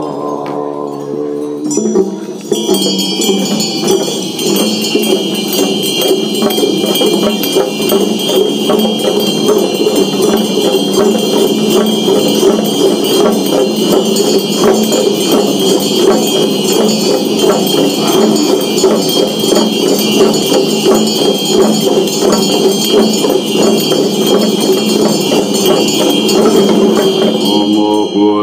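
Tibetan Buddhist Chöd ritual instruments: hand bells ringing and damaru hand drums rattling in a fast, continuous beat over a steady low drone. They start about two seconds in, as the last chanted line fades, and stop just before the chant resumes.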